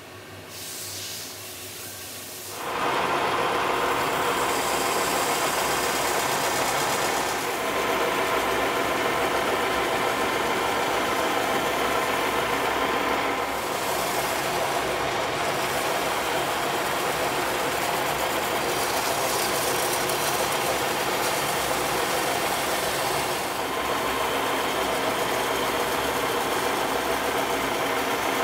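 Colchester Triumph 2000 lathe with a toolpost-mounted abrasive belt sanding attachment starting up about two and a half seconds in, then running steadily as the belt polishes the spinning workpiece. The hum of motor tones and grinding hiss dips briefly a few times.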